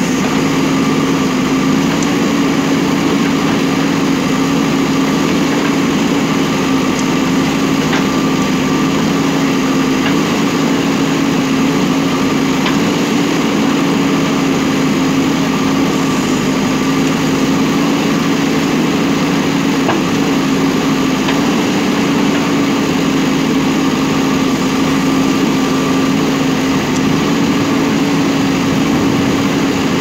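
JCB backhoe loader's diesel engine running steadily as its backhoe arm digs, a constant drone with small dips in pitch now and then.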